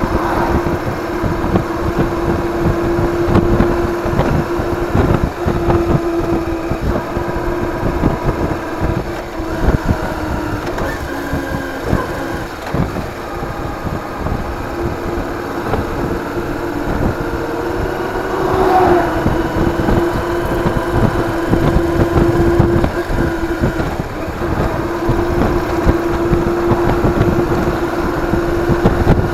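Motorcycle engine running at a steady cruising speed, with its drone holding a fairly constant pitch, and wind buffeting the action camera's microphone.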